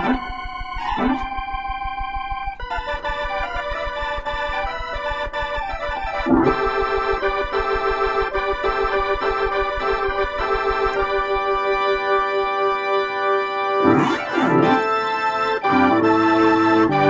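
WLM organ, a 1976 Finnish Hammond clone, playing sustained chords through an Allsound Leslie rotary speaker. The chords change a few times, and near the end it moves into quickly alternating notes.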